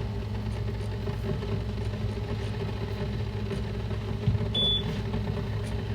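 Steady low engine-like hum, with a click and then a short high electronic beep about four and a half seconds in, as a single-cup coffee maker is switched on to heat.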